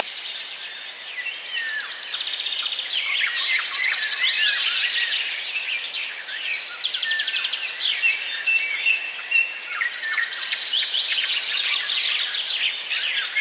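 Many small birds chirping and twittering at once, their calls overlapping, with bursts of fast trills.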